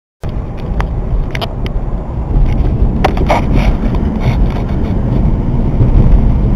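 Road and engine noise heard inside a moving car: a loud, steady low rumble, with a few light clicks and knocks scattered through it.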